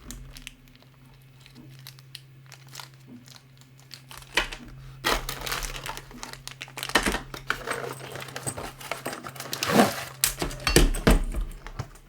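Packaging being opened and handled: crinkling and rustling of wrapping, quiet at first, then louder and irregular from about four seconds in.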